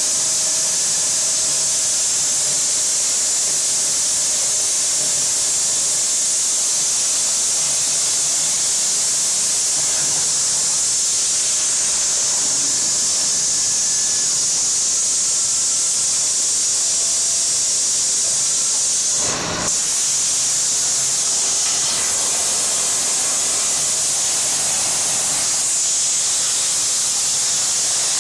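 Plasma cutter torch cutting under CNC control: a steady, loud hiss of the arc and air jet, strongest high up. The hiss briefly breaks about nineteen seconds in.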